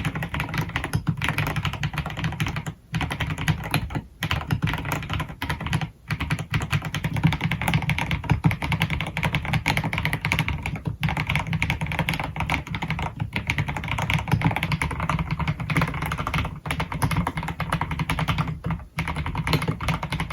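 Typing test on an AKKO x MonsGeek MG108B full-size mechanical keyboard with Akko Piano switches and PBT keycaps: fast, continuous key clicks with a few short pauses.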